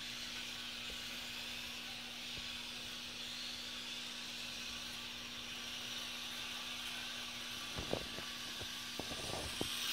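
Faint high whine of a Kyosho RC motorcycle's small electric motor running around the track, over a steady low hum; a few sharp clicks near the end.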